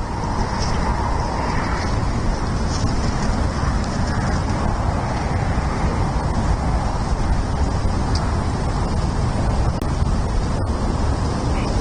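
Steady low outdoor rumble picked up by an eagle nest camera's microphone, the kind that wind and distant road traffic make. There is a momentary dropout near the end.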